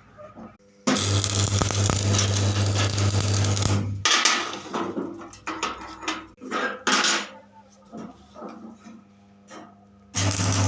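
Arc welding on steel, a loud crackling hiss over a steady mains hum for about three seconds. Then comes a run of metal knocks and clanks, and another short burst of welding near the end.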